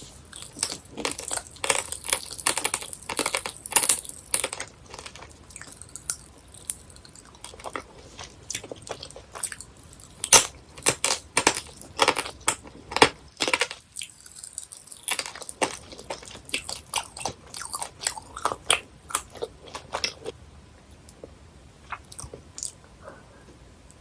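Close-miked chewing of chewy jelly candies: a dense, irregular run of sharp bites and mouth clicks. It pauses briefly a little past halfway and thins out near the end.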